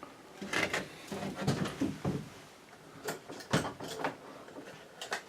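A few sharp knocks and clicks, about a second apart, with rustling in between: a sailboat cabin's hanging locker door and its contents being handled.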